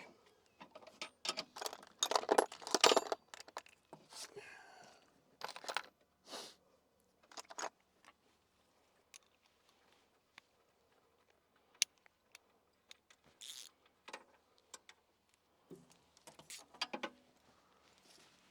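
Metal hand tools, wrenches and sockets, clinking and rattling in irregular bursts of sharp clicks, with a quieter stretch in the middle broken by single clicks.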